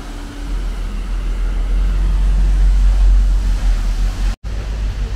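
Wind buffeting the microphone over a steady rush of falling water and spray, swelling to its loudest about three seconds in. The sound cuts out for a split second near the end.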